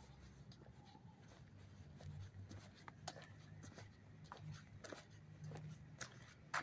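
Faint footsteps of a person walking on a concrete sidewalk: a few soft, irregular taps over a low hum.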